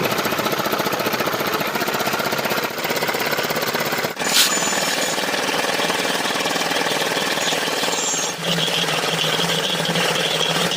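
Electric arc welding on a tie beam: a steady, dense crackle and buzz, with a brief louder burst about four seconds in and a steady hum joining about eight seconds in.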